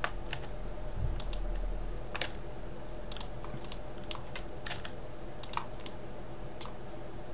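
Computer keyboard keys and mouse buttons clicking: about a dozen separate clicks, irregularly spaced, as Blender shortcuts are pressed. A steady low hum runs underneath.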